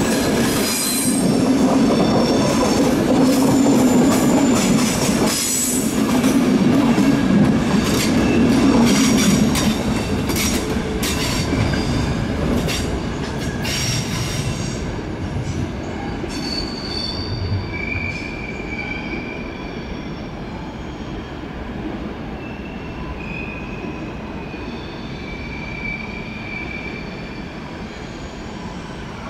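Passenger coaches of an ÖBB night train rolling through the station throat. Wheels click sharply over joints and points for the first ten seconds or so, and the noise then fades as the train pulls away, with thin high flange squeals on the curves.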